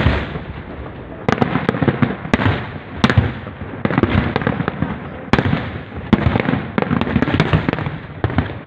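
Aerial fireworks shells bursting: one sharp bang right at the start, then from about a second in a dense barrage of overlapping bangs and booms.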